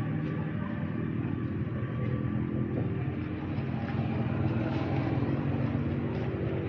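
An engine or motor running steadily at an even pitch, with a few faint clicks over it.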